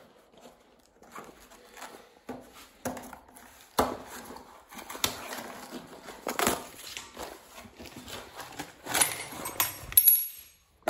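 A small box of toilet mounting hardware being opened and its parts handled: rustling with scattered sharp clicks and knocks as the pins and brackets are taken out, and a longer rustle near the end.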